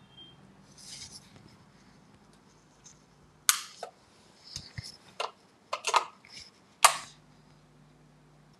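A string of sharp clicks and knocks, the loudest about halfway through and just before the end, with a short high beep at the very start.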